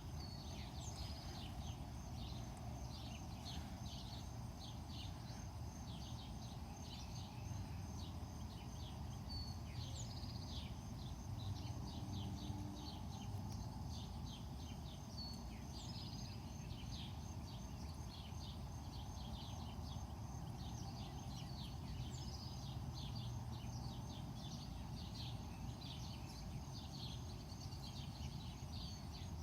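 Many short bird chirps over a steady, pulsing high-pitched trill and a low background rumble.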